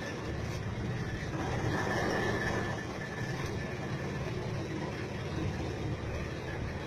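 Fishing boat's engine running steadily with a low hum.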